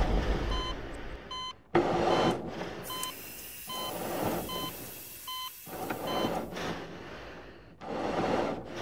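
Hospital heart monitor beeping in short high beeps every second or so, over a rushing background noise that swells and drops.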